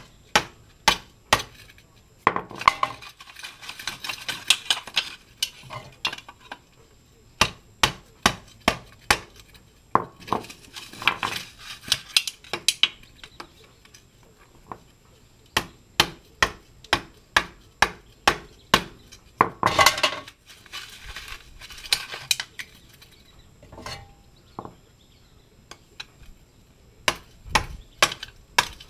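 Hammer striking the end of a long screwdriver driven into a catalytic converter, breaking up and knocking out its ceramic honeycomb core. Sharp metallic strikes come about one or two a second in runs with short pauses, and there are a few stretches of denser clatter.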